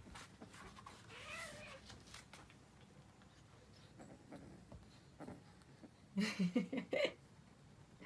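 Two kittens play-wrestling, with a faint mew that rises and falls about a second in and a louder run of short pitched sounds around six seconds in.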